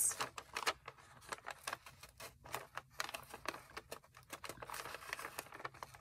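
Faint, irregular crinkling of wrapping paper with small clicks, as fingers slowly pick at and peel a round sticker seal off it.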